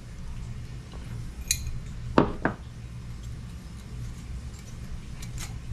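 Metal engine parts and tools clinking and knocking on a workbench: a ringing clink, then two sharper knocks about two seconds in, and a few light clicks, over a steady low hum.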